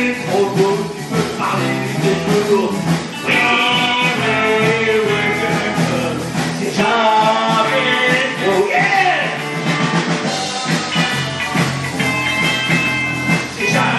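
Live rock and roll band playing amplified, with electric guitars and drums, and a singer's voice over them.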